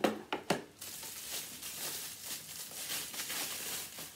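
Three sharp knocks of things being handled and set down, then a continuous crinkling rustle of packaging being handled.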